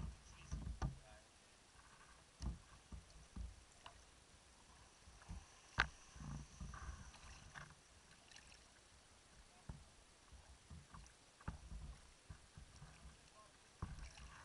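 Faint river water lapping and knocking against a camera at the waterline: irregular low thumps with a few small clicks, the sharpest about six seconds in.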